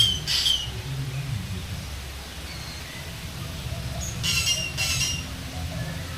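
Birds calling in an aviary: two short raspy calls right at the start and another pair about four seconds in, over a steady low rumble.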